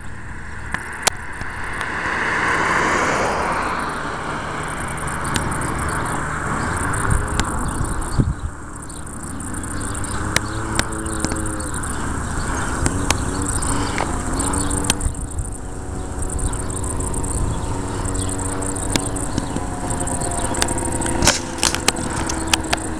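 A car passes, its road noise swelling and fading over the first few seconds. Then the two-stroke single of a 1983 Honda Odyssey FL250 racing buggy, fitted with a boost bottle, runs at a distance, its pitch rising and falling as it is driven down the road.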